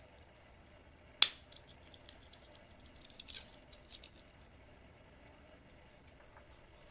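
Hand work on a fluorescent fixture's wiring: one sharp snap about a second in, then a few faint light clicks.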